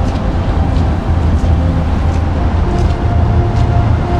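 Background music: a low, steady drone with held notes that change every second or so.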